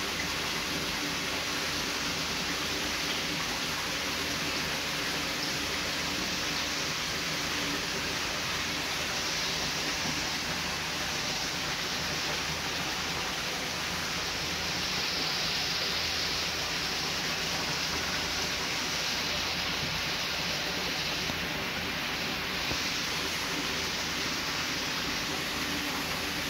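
Steady rushing hiss of running water that keeps an even level throughout.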